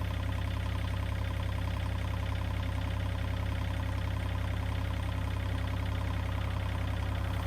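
John Deere 35G compact excavator's diesel engine running steadily, with a constant low drone.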